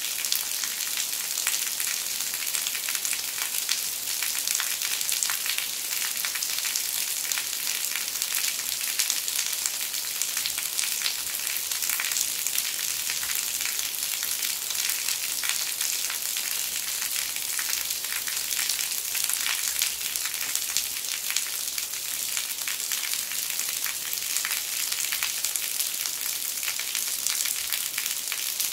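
Heavy rain falling steadily, a dense hiss of countless drops, with rainwater streaming and dripping off the eaves of a traditional Korean tiled roof.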